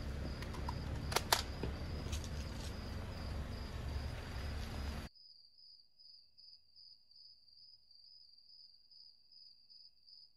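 Crickets chirping in a steady pulsing trill. For the first five seconds it sits over a low outdoor rumble with a couple of sharp clicks about a second in; then the rumble cuts off and the chirping goes on alone, faint.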